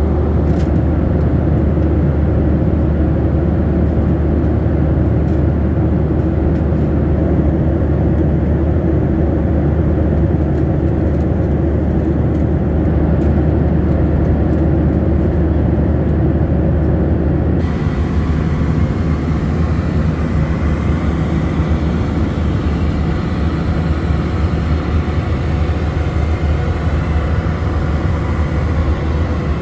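Steady drone of a Boeing 737-600 airliner heard inside the cabin: CFM56 engine rumble and rushing air. About two-thirds of the way through, the sound changes suddenly to a brighter, hissier drone.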